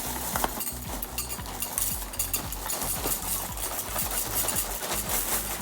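Frosted Flakes pouring out of the box, a dense patter and rattle of dry flakes tumbling into a bowl and spilling over.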